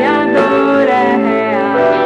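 Music with guitar, and perhaps a singing voice, playing at full level.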